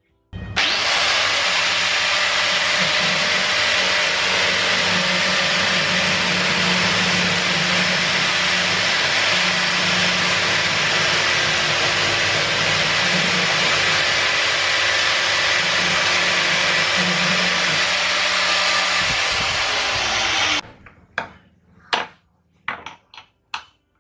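An electric power tool runs steadily for about twenty seconds with a motor hum under a loud hiss, then cuts off suddenly; a handful of sharp clicks and knocks follow.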